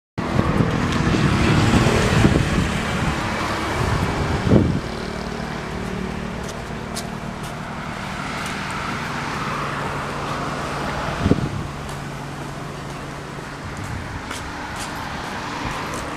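A car running, with road and wind noise loudest in the first few seconds, then a steady low engine hum that stops about three-quarters of the way through. Two single knocks stand out.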